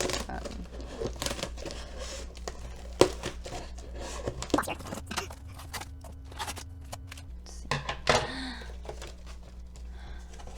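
A shipping package being opened by hand: irregular crinkling, rustling and tearing of the packaging, with scattered sharp clicks.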